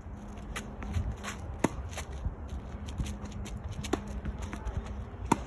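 Tennis ball impacts on a hard court: about six sharp pops and bounces of ball on racket strings and court surface, the loudest about a second and a half in and just before the end, with sneakers shuffling and scuffing on the court between them. A faint steady low hum runs under them.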